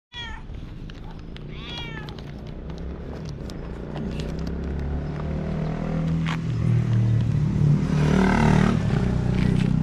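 A ginger cat meows twice, once right at the start and again about two seconds in, each a short rising-and-falling call. Later a plastic bag of dry cat food rustles loudly for a second or two as it is held out to the cat.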